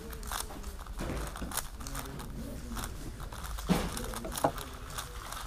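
Quick, uneven clicking and clacking of a MoYu AoChuang GTS 5x5 M magnetic speedcube being turned at speed during a solve, with two sharper clacks about three and a half and four and a half seconds in.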